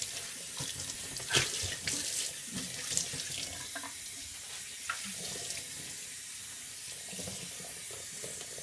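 Kitchen faucet running steadily into a stainless steel sink while dishes are rinsed under the stream. Metal dishware knocks together a few times in the first five seconds, loudest about a second and a half in.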